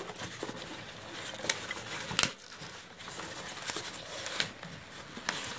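Hands rummaging through foam packing peanuts in a cardboard shipping box: a continuous rustling crinkle with several sharp clicks spread through it.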